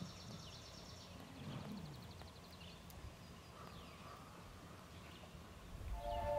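Faint songbirds: a fast, high trill of rapidly repeated notes for the first two to three seconds, then a few short, downward-sliding chirps, over a low outdoor rumble.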